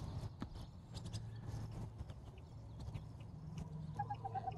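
Faint backyard poultry-yard sounds: scattered soft clicks and ticks, and about four seconds in a short, rapid run of six or seven bird notes.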